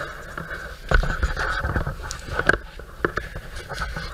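Rustling and knocking of packing foam and cardboard being handled inside a bicycle shipping box, with scattered sharp clicks, the loudest about a second in and again around two and a half seconds.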